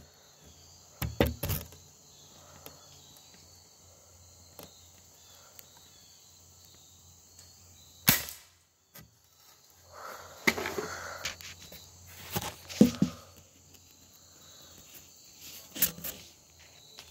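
Multi-pump BB gun, pumped seven times: a few handling clicks about a second in, then one sharp shot about eight seconds in. After the shot, a few seconds of scraping and clicking as the gun is worked again.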